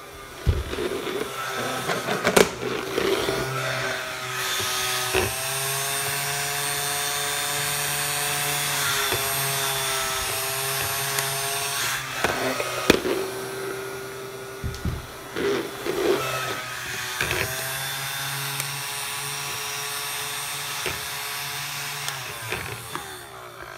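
Battery-powered hover soccer disc's fan motor running with a steady whine, its pitch dipping and recovering now and then as the disc glides. Several sharp knocks sound as the disc is kicked around.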